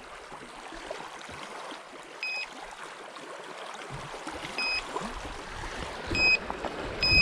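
Electronic carp bite alarm giving short single beeps a couple of seconds apart, then beeping in quicker succession near the end as a fish runs with the bait. Steady wind and water noise, with gusts rumbling on the microphone.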